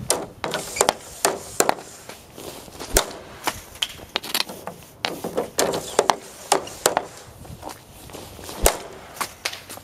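Hockey stick and rubber pucks clacking on outdoor ice during shooting: a string of sharp, irregular hits, several a second, from the blade striking pucks and ice, with the loudest cracks near the start, about three seconds in and near the end.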